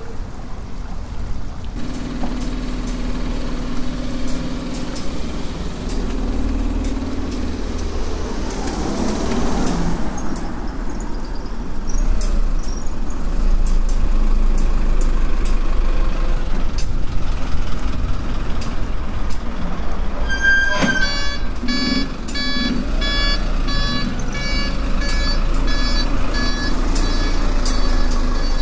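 Steady low rumble of a large vehicle or traffic. About two-thirds through a sharp click, then a repeating electronic beeping of several high tones that goes on to the end.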